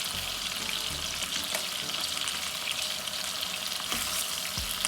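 Chicken thighs frying in a pot: a steady sizzle with scattered small crackles and a few low knocks.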